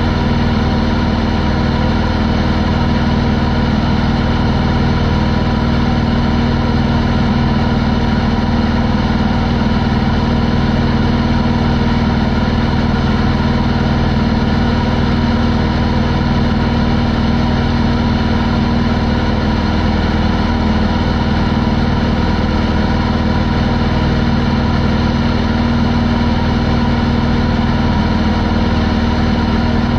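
Pietenpol Air Camper's air-cooled Corvair flat-six engine and propeller running steadily at cruise in flight, a constant drone that holds the same pitch throughout.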